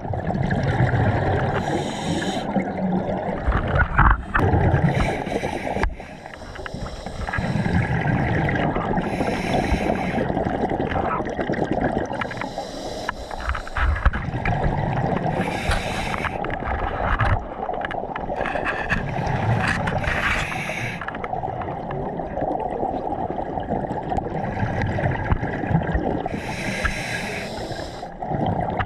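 Scuba regulator breathing heard underwater: a gurgling burst of exhaled bubbles every few seconds over a steady low water noise.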